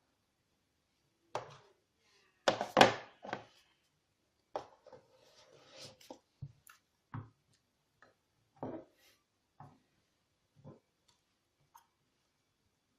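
Handling sounds: a string of short knocks and thuds of small objects being picked up and set down, the loudest cluster about three seconds in, with a brief rustle around five seconds in.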